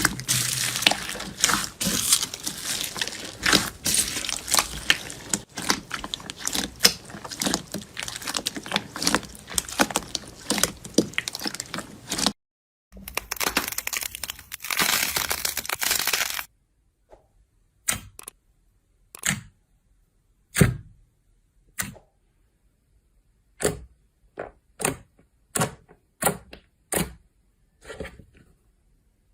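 Slime being squeezed and worked, with dense crackling and popping for about twelve seconds. After a brief break comes another few seconds of crackle, then single sharp pops about once a second.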